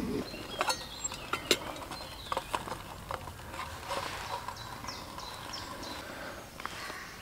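A carved wooden spoon knocking and scraping against a steel mug of boiling water as a boiled egg is fished out, with a few light clicks in the first three seconds, then soft handling and cloth rustle.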